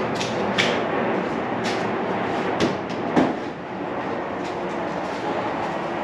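Handling knocks and clatter as a refrigerator door is lifted off its hinges and carried away, a handful of sharp knocks in the first few seconds over a steady rushing noise.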